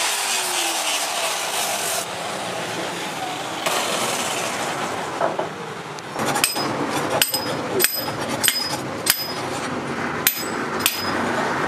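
A machete's handle end knocked down onto a metal block to seat the handle on the tang: about seven sharp knocks with a short metallic ring, one every two-thirds of a second or so, starting about halfway through. Before that there is only a steady noisy hiss.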